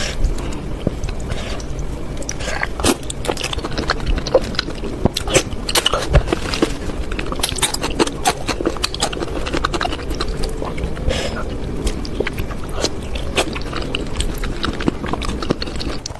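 Close-up eating sounds of spicy noodle soup: irregular wet smacks, slurps and chewing clicks throughout.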